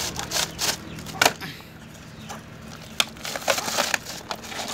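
Woven plastic feed sack crackling and rustling as it is gripped and handled around a trap, in irregular crunchy crackles with a few sharper snaps, the sharpest about a second in and around three seconds in.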